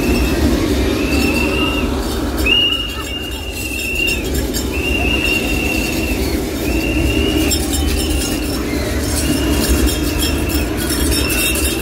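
A high electronic beeping tone repeats about eight times, each beep about a second long with short gaps, over a steady low rumble.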